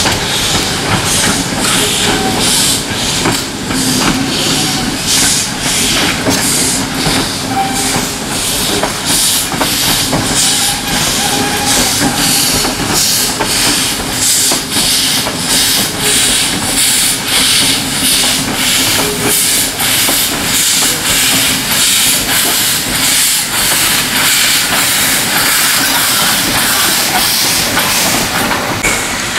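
Stephenson-built 0-6-0 steam locomotive working as it shunts a rake of coaches, its exhaust chuffing evenly at about two beats a second over a steady hiss of steam.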